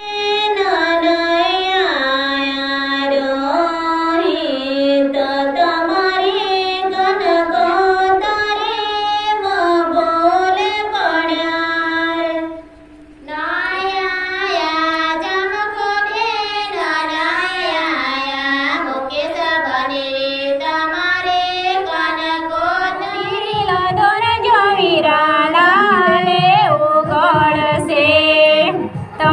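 Rathwa Adivasi wedding song (desi lagna geet) sung solo by female voices, girls and a woman, one voice at a time into a handheld microphone. The singing breaks off briefly about 13 seconds in, then goes on.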